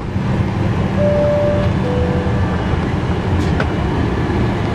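Inside a Boeing 737-900ER cabin: the steady low rush of the cabin air, with a two-tone high-low chime about a second in.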